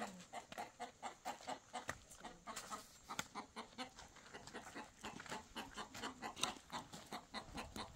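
Chickens clucking in a quick run of short calls, several a second.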